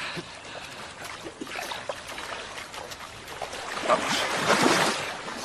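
Water sloshing and trickling as people move through a pool, building to heavy splashing about four seconds in as one of them surges up out of the water.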